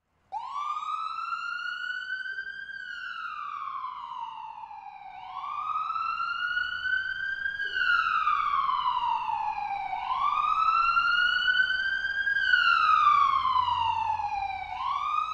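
Wailing siren sound effect, its pitch sweeping slowly up and down about every five seconds: three full rises and falls, then a fourth rise that cuts off abruptly.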